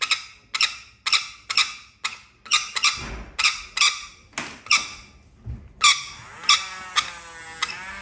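A lorikeet screeching in short, harsh calls, about two a second, as it is held for a nail trim. From about six seconds in, a small battery rotary nail grinder (Dremel) whirs under the calls.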